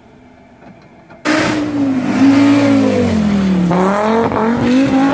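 Quiet for about the first second, then suddenly loud: a historic Audi quattro rally car's turbocharged five-cylinder engine revving hard. Its pitch dips and climbs as the driver works the throttle through a bend.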